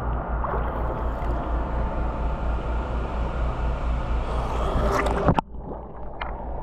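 Steady sloshing and rushing of pool water, with one sharp knock a little over five seconds in, after which the water noise briefly drops.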